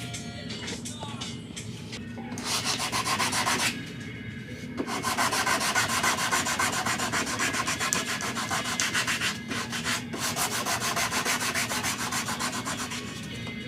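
Sandpaper scraping back and forth in quick, even strokes over a car's painted front bumper. The strokes start about two and a half seconds in, break off briefly around four seconds, then run on steadily until near the end.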